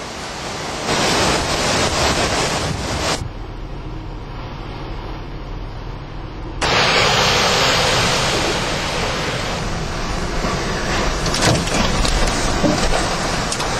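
Hurricane-force wind blowing and buffeting the microphone as a loud, even rush of noise, with wind-driven rain. About three seconds in the sound turns abruptly duller and quieter, then jumps back to full strength a little past halfway.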